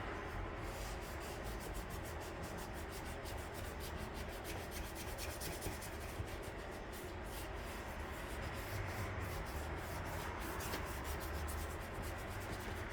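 Hand sanding the primed hood of a 1958 Johnson outboard motor: sandpaper rubbing steadily in quick, repeated strokes to work out spots in the primer.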